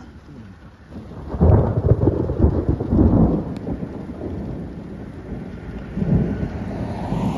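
Thunder: a crackling rumble that builds about a second in, is loudest for the next two seconds and then fades, followed by a second, weaker rumble about six seconds in.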